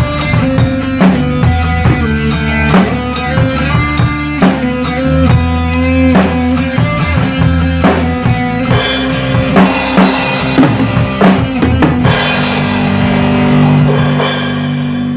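Acoustic drum kit played along with a rock backing track, with kick, snare and cymbal hits over guitar and bass. About three-quarters of the way through, the steady beat gives way to a held, ringing chord with a few cymbal strikes.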